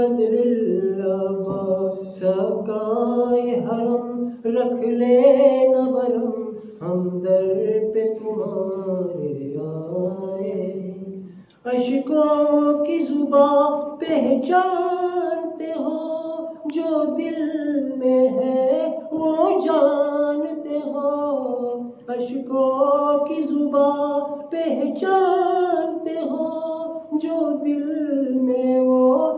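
A man chanting a munajat, a devotional supplication, solo and unaccompanied. He holds long melodic notes that slide up and down in pitch, with a brief break about eleven seconds in.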